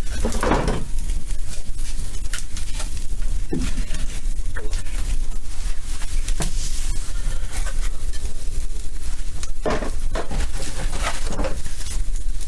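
Fire crackling in a boiler being lit, over a steady low rumble, with a few louder knocks and clatters, one about half a second in and several near the end.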